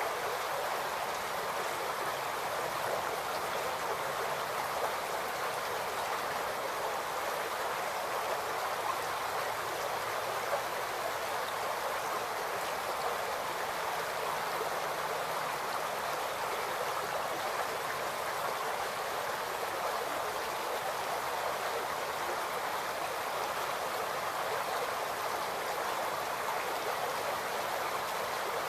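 Shallow creek babbling over rocks: a steady, even rush of flowing water.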